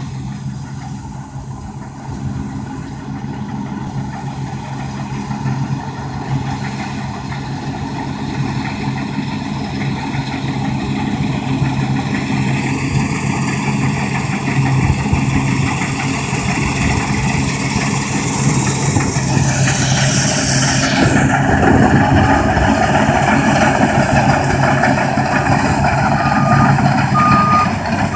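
New Holland CX5080 combine harvester running under load as it cuts and threshes grain, its steady engine and machinery noise growing louder as it approaches. A few short high electronic beeps sound near the end.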